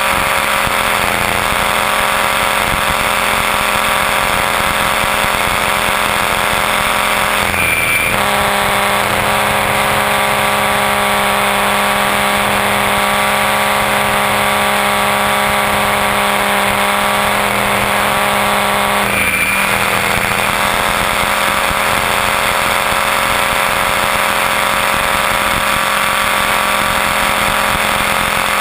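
Onboard sound of an electric T-Rex 500 ESP RC helicopter in flight: a steady high whine from the motor and gears over the rotor. The tone wavers and shifts briefly twice, about eight and nineteen seconds in.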